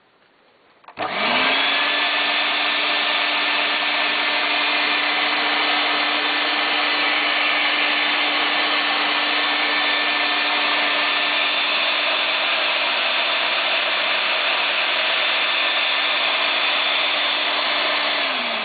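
Electrolux Z303 vacuum cleaner with a 650-watt motor switched on about a second in. Its motor spins up quickly to a steady whine over a loud rush of air, then is switched off near the end and its whine starts falling as the motor winds down.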